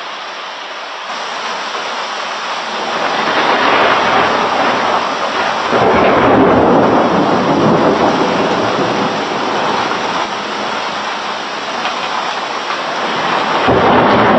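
Thunder rolling during a heavy downpour, with rain noise throughout. The rumble swells about four seconds in, grows louder and deeper around six seconds, eases, and builds again near the end.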